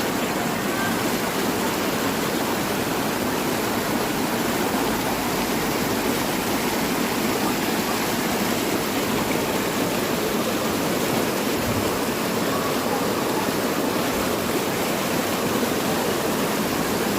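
Mountain stream rushing steadily over rocks, running full after heavy monsoon rain.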